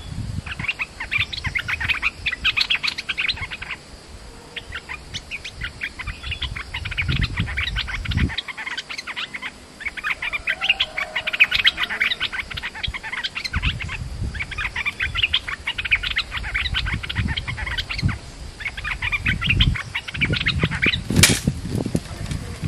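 Stripe-throated bulbul calling at a decoy cage: rapid, chattering phrases of two to three seconds each, about six of them, with short gaps between. Low rumbles underneath and one sharp click near the end.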